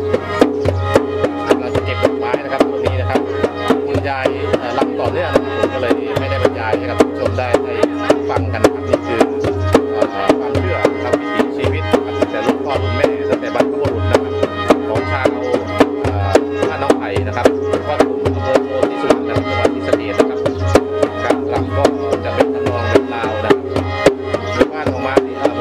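Isan ritual music for a Ram Saeng dance: a khaen mouth organ's steady drone and melody over a hand-beaten drum keeping a quick, even beat.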